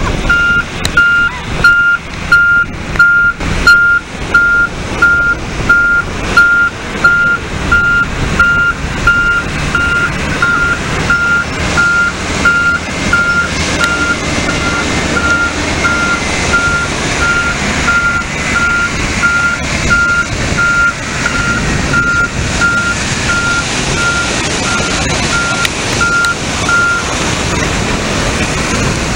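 A Volvo articulated dump truck's reversing alarm beeping steadily, about three beeps every two seconds, as the truck backs up. It runs over the truck's engine and breaking surf, and the beeping stops shortly before the end as the truck tips its sand into the waves.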